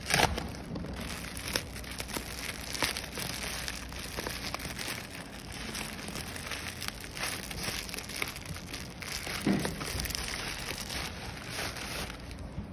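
Plastic courier mailer bag crinkling and tearing as it is slit and ripped open by hand, with a sharp crackle right at the start and another near the end.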